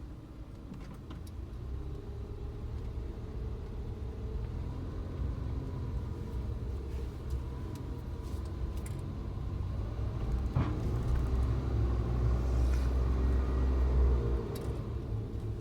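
Suzuki Jimny on the move: a steady low engine and road rumble that grows louder about ten seconds in and eases near the end, with one sharp click partway through.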